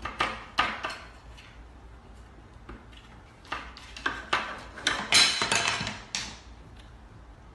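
Wooden spoon rattling and knocking against a metal cabinet-drawer handle as a cat paws at it, in scattered bursts of clatter. The loudest flurry comes just after five seconds in, as the spoon is knocked off the handle.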